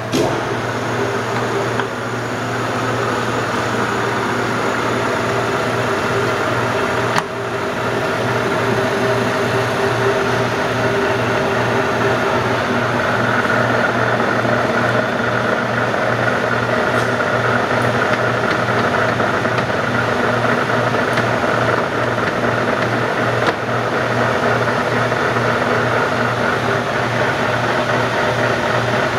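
Clausing Nardini MS-1440E engine lathe running with its chuck spinning: a steady machine hum with several held tones over a low, evenly pulsing rumble. A couple of faint clicks.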